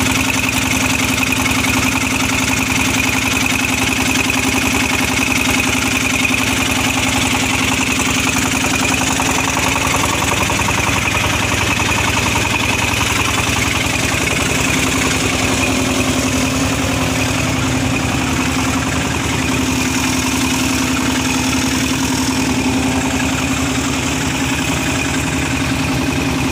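Small stationary engine running steadily at a constant speed, driving a centrifugal pump that sucks mud through a suction hose out of a water-intake basin. An even, unbroken running sound.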